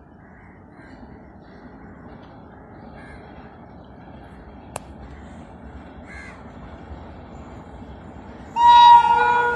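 Crows cawing faintly in the distance, then near the end a sudden loud blast of an approaching train's locomotive horn, a high pitched, several-toned note that carries on more softly after the first burst.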